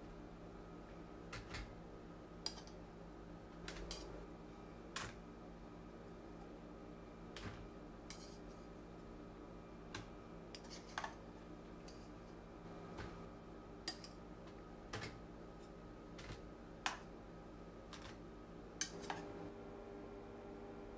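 Scattered light clinks and knocks of kitchen utensils against dishes and cookware, one every second or two, over a steady low hum.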